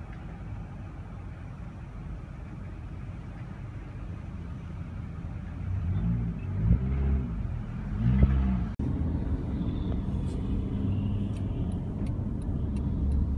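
Car heard from inside its cabin: a low engine and road rumble that grows louder about six seconds in as the engine revs up and the car pulls away.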